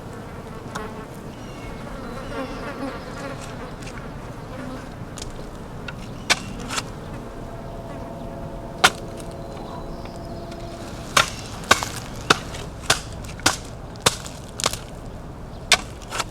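Insects buzzing steadily, with a run of sharp clicks or knocks, roughly two a second, through the second half.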